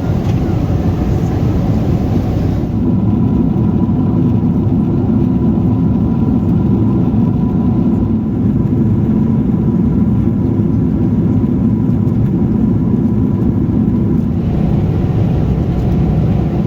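Steady cabin rumble inside a Boeing 777-300ER, engine and airflow noise with a faint steady whine above it. The upper hiss drops away about three seconds in and comes back near the end.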